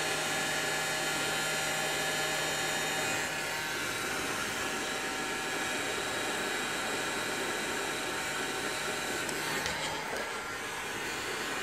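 Bosch PHG 630 DCE heat gun running on its slow fan setting: a steady blowing rush with a faint motor whine. A low hum drops out about ten seconds in.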